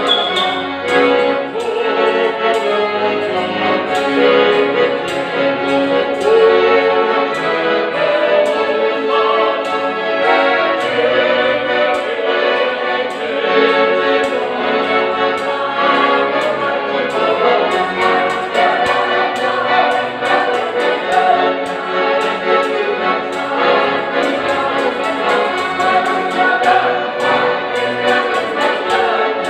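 Four accordions playing a folk song together while a choir sings, continuous and loud.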